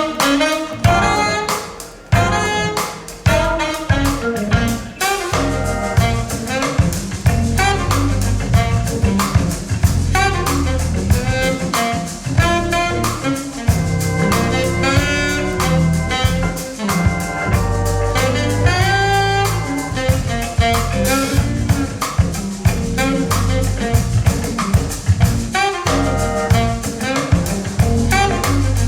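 Lively jazz with saxophone and drum kit, played from a vinyl record through a high-end hi-fi system's loudspeakers.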